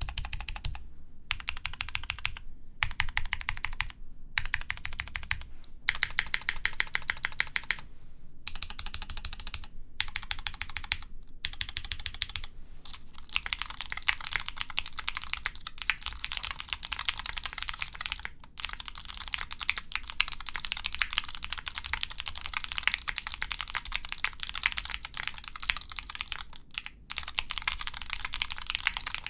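Neo70 mechanical keyboard with Cherry MX Purple (Glarses) switches, carbon fiber plate and GMK keycaps being typed on. The keystrokes clack in short runs with brief pauses, then run on as continuous fast typing from about halfway through.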